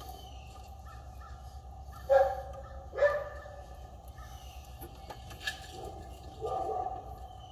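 A crow cawing three times outdoors: two short caws about a second apart, then a longer one near the end.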